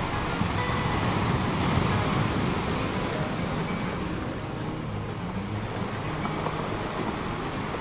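Steady rush of wind and surf at the water's edge, a little louder in the first half.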